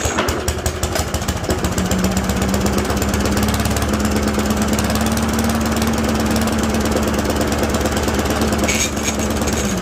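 Briggs & Stratton single-cylinder push-mower engine running steadily just after being pull-started with a newly replaced recoil starter, its speed climbing for the first couple of seconds and then holding even.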